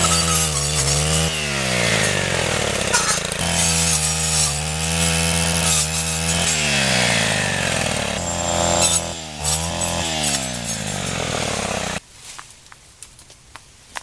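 Brush cutter fitted with a saw blade, its small two-stroke engine running at high revs and dipping in pitch about four times as the blade bites into brush, each time revving back up. It stops abruptly near the end.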